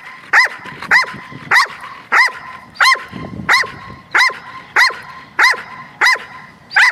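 A Belgian Malinois barks on cue at a ball toy. It gives a steady run of about eleven sharp barks, roughly one every 0.6 seconds, and the even rhythm keeps up throughout.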